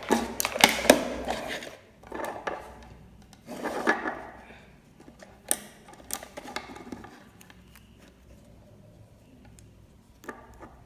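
Clicks, taps and rustling from a digital multimeter and its test probes being handled and set against a battery. The handling is busiest in the first half and thins to a few single clicks.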